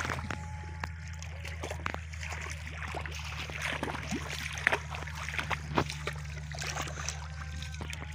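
Water splashing and sloshing in shallow muddy water as hands grope and slap through it, a string of small irregular splashes and drips over a steady low hum.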